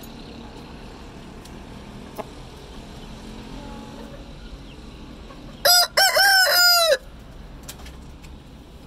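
A rooster crows once, loudly, about five and a half seconds in. There is a short opening note, a brief break, then a drawn-out call of about a second that cuts off sharply.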